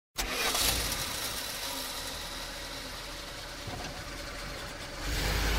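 Steady mechanical engine-like noise that starts suddenly from silence, with a deeper, louder rumble building near the end.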